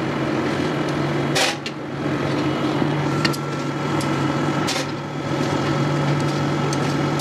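Knife sliding grilled chicken pieces off metal skewers onto a steel tray, giving a few short scrapes and clinks, over a steady mechanical hum.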